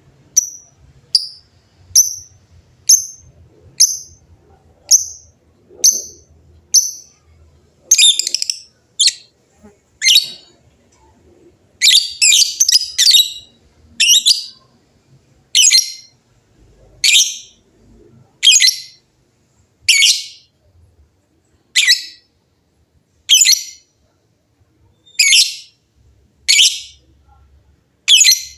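Lovebirds giving short, shrill calls about once a second. The first calls are thin and high. From about eight seconds in they turn louder and harsher, with a quick run of calls near the middle.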